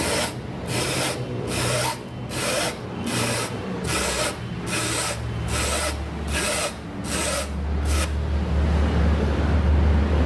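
Rubber of a used truck tire scraping against a fixed blade as it is worked through in short strokes to cut it into a strip: a rasping scrape about twice a second, stopping about eight seconds in. A steady low hum rises underneath and is loudest near the end.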